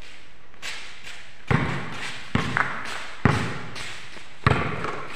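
A basketball bouncing on a concrete court: several thumps about a second apart, each with a short ringing tail.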